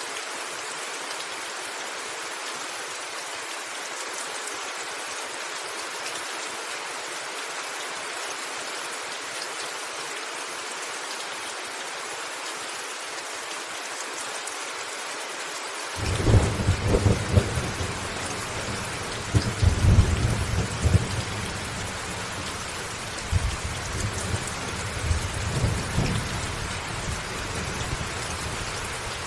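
Steady rain falling on a rooftop. About halfway through, a roll of thunder breaks in suddenly and rumbles on in several swells for about ten seconds, easing off near the end.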